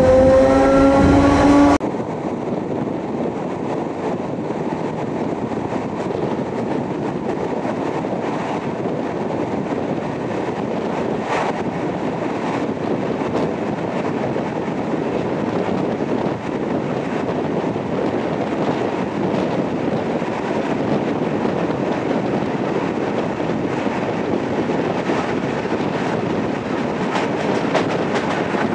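ER2T electric multiple unit running along the track: a steady rumble with scattered faint clicks of wheels over rail joints. It opens with a brief rising whine that cuts off abruptly about two seconds in.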